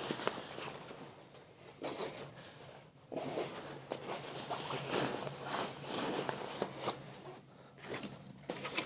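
Backpack being closed up by hand: a series of irregular nylon rasps and rustles as the fabric, straps and lid are worked and fastened down.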